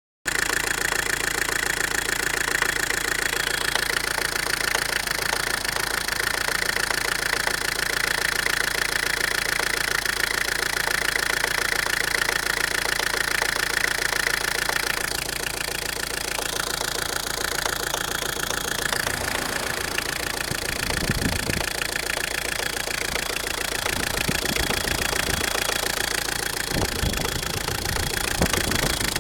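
Engine idling steadily with a knock coming from its high-pressure fuel pump (injection pump).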